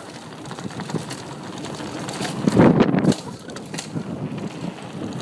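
A bicycle rolling fast down a dirt trail: tyre noise, rattling over bumps, and wind on the microphone. A louder rough burst comes about two and a half seconds in and lasts about half a second.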